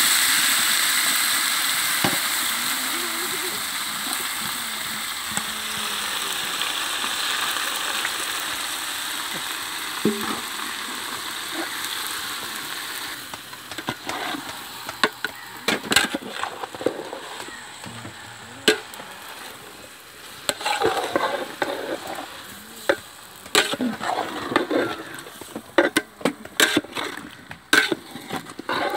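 Sliced tomatoes tipped into a hot pot of onions, sizzling loudest at first and dying away over about a dozen seconds. Then a metal ladle scrapes and knocks against the metal pot as the tomatoes are stirred, in irregular clicks that grow busier near the end.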